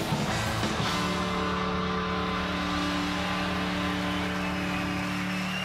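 A live rock band plays at full tilt, then about a second in the drumming stops and a single chord is held, ringing steadily: the sustained closing chord at the end of a song.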